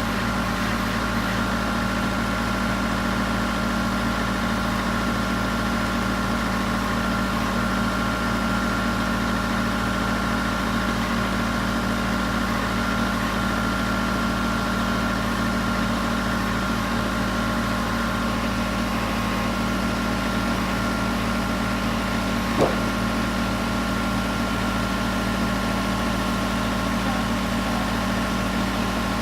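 Backhoe engine idling steadily, with one sharp knock about three-quarters of the way through.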